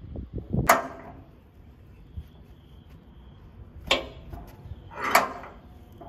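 Three sharp metal knocks with a brief ring, the last a quick double strike: metal fittings of a sawmill log carriage being worked as a log is fixed on its centring spindle.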